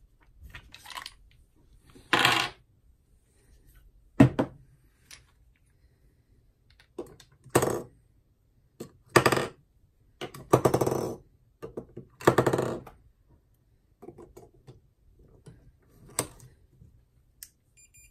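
AA rechargeable batteries and the battery compartment of a Sea & Sea YS-D2 underwater strobe being handled during a battery swap. There is a string of sharp clicks and clinks and several short rattles, about half a second each, as batteries are tipped out and dropped in and the screw-on battery cap is turned.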